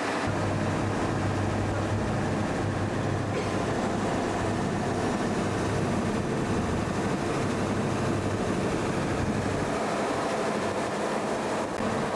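Steady engine noise of a vehicle under way: a low hum over a broad even rumble, with the hum easing off near the end.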